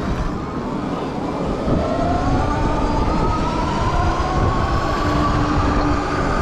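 Electric bike motor whining as it accelerates from a stop, its pitch rising for a few seconds and then levelling off, over wind rumble on the microphone.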